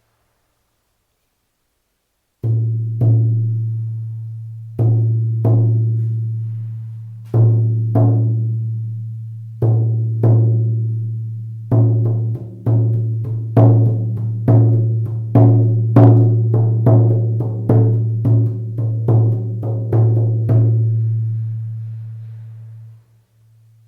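Shaman frame drum being played, each stroke booming with a deep ringing tone that dies away slowly. It starts a couple of seconds in with paired double beats, speeds into a steady beat of about two strokes a second, then rings out after the last stroke near the end.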